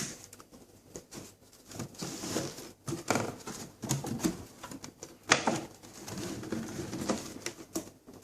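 Hands handling a small drone's packaging and parts: irregular clicks, taps and short rustles, with a sharper knock about five seconds in.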